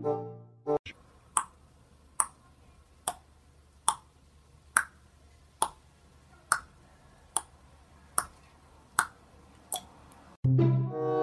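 Eleven short, sharp clicks at an even pace, a little under a second apart, over a faint steady hiss.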